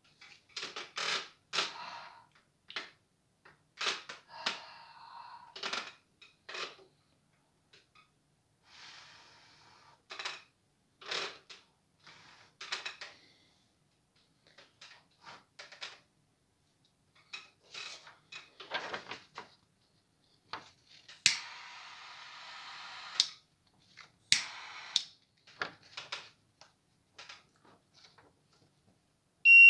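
Short, irregular puffs of breath and rustles as the gas sensor is breathed on, with a longer hissing puff about three-quarters of the way through. Right at the end a piezo beeper starts a steady high-pitched beep: the homemade gas detector's alarm tripping.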